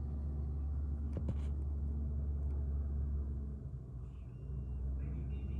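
A heavy vehicle's engine running steadily with a low rumble, easing off briefly, with a couple of sharp clicks early on; a reversing alarm starts beeping near the end.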